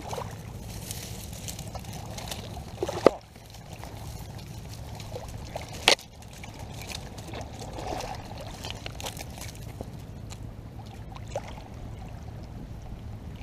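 Shallow seawater lapping and trickling over a pebble shore, with two sharp knocks about three and six seconds in.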